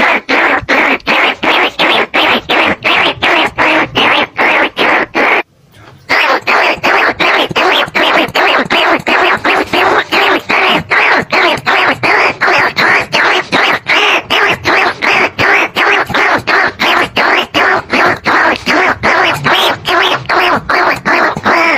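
A recorded rat-lure call for greater bandicoot rats and ricefield rats, played as a loop. It is a fast, even run of squeaking calls, about three a second, with a short break about five seconds in.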